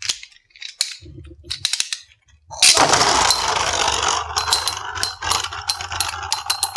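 Two Beyblade spinning tops, fitted with 3D-printed drivers that carry metal ball tips, land in a plastic stadium about two and a half seconds in and spin with a loud steady whir. From about four seconds on they strike each other again and again in rapid metallic clinks.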